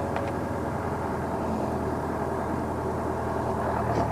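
Steady mechanical drone of a crane's engine running while it unloads, an even hum holding several level tones. A couple of faint clicks sound near the start.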